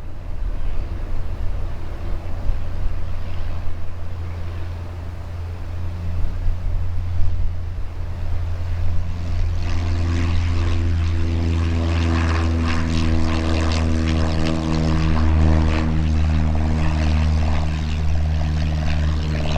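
Piper Cherokee Warrior II single-engine propeller plane, its four-cylinder engine and propeller droning steadily. The drone grows louder from about halfway through as the plane comes closer.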